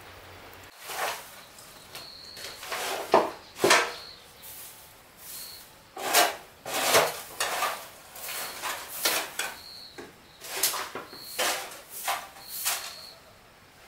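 A run of irregular scraping and rubbing strokes, each lasting a fraction of a second, with a short high peep at one pitch recurring now and then.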